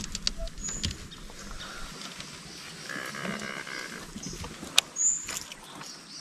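A distant animal call, one drawn-out pitched note of under a second about halfway through. About five seconds in comes a sharp click and a brief whoosh as a baitcasting reel is cast.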